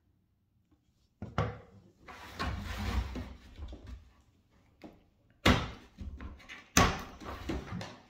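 Someone fetching tools: a knock a little over a second in, a couple of seconds of rummaging and clatter, then two sharp bangs about a second apart, the loudest sounds here.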